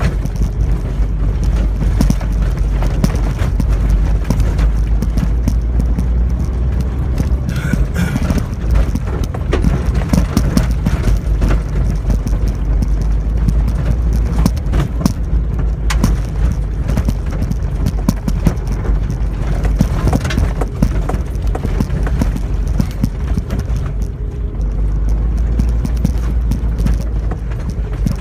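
Suzuki Jimny JA11C soft-top driving over a rough dirt mountain track: a steady low engine and road rumble with constant irregular knocks and rattles from the body and suspension as it jolts over the ruts.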